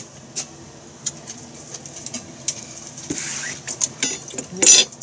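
Kitchen handling noises: scattered light clicks and knocks of a large kitchen knife and utensils against a cutting board, a brief scrape about three seconds in, and a louder clatter near the end.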